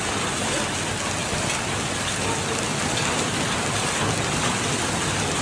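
Hailstones falling steadily during a heavy hailstorm, pattering densely on a lawn, paving and garden plants in an even, unbroken hiss.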